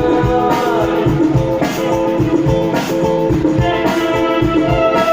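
Instrumental break in a Hindi film song: a guitar melody over a steady drum beat, with no vocals.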